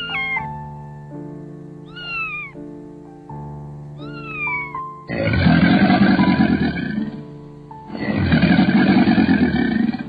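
A cat meowing three times over background music with sustained notes, each meow rising then falling in pitch. These are followed by two loud, rough animal calls about two seconds long each, a second apart.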